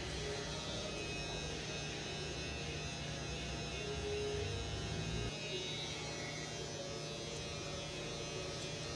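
Steady low electric hum. Its deepest part cuts out about five seconds in.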